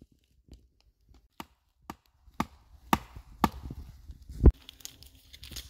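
Wooden knocks of a stake being hammered into the forest floor, about seven strikes roughly half a second apart, the last one the loudest.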